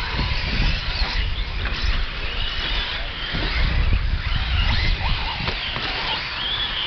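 Battery-powered 4-wheel-drive short course RC trucks racing on a dirt track, their electric motors whining up and down in pitch as they accelerate and brake, with scattered knocks from the trucks. A low rumble of wind on the microphone runs underneath.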